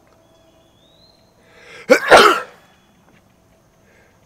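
A man sneezes once, about two seconds in: a short breathy intake, then a loud, sharp sneeze. The sneeze is set off by the IPA beer he is drinking.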